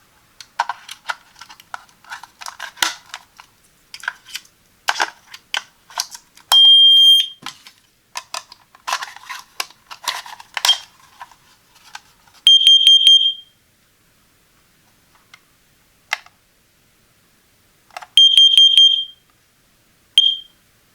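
Kidde KN-COB-LP2 carbon monoxide detector's piezo alarm sounding: a single long high beep about seven seconds in, then two groups of about four quick shrill beeps some five seconds apart, the carbon monoxide alarm pattern, and a short beep near the end. Before the beeps come dense clicking and rustling of plastic being handled.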